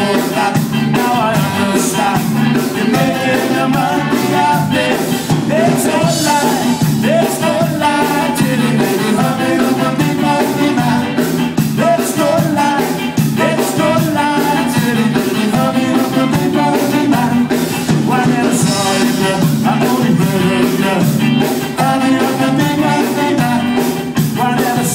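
Live ska band playing at full volume: electric guitars, saxophone and drums on a steady beat, with a singer's vocals.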